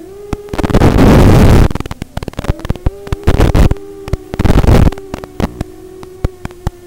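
Hiss and hum from an analog FPV video link: a steady low tone, broken three times by loud bursts of static and by many sharp crackles in between, typical of the radio signal breaking up.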